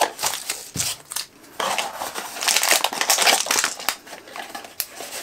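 Cardboard toy blind-box packaging being torn open by hand, with a few sharp clicks, then a long stretch of dense crinkling and tearing in the middle.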